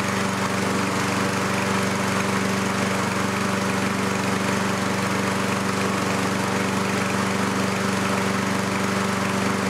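Lawnmower engine running steadily at a constant speed. It is a known good engine, under test for crankcase vacuum through its dipstick tube.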